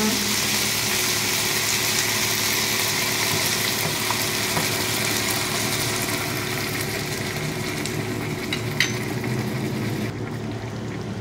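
Onions, garlic, olives and capers frying in oil in a pan, a steady sizzle, as home-canned tomato sauce is poured in from a jar; the hiss dies down about ten seconds in as the sauce covers the pan.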